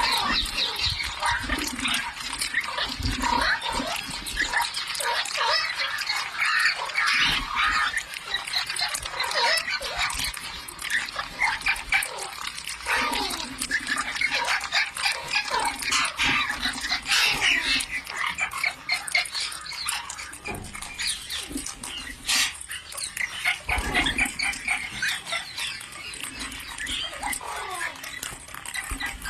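Parrot calls: a dense, unbroken run of harsh squawks and chatter.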